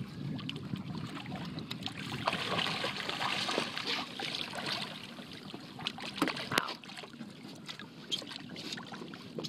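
Hooked shark thrashing at the water's surface, making irregular splashing and sloshing, with a sharp splash about six and a half seconds in.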